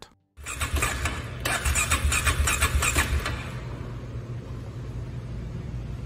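ATV's engine turning over on its electric starter, a rapid rhythmic churning for about three seconds, then a steadier low drone. The ATV is one its owner says won't start.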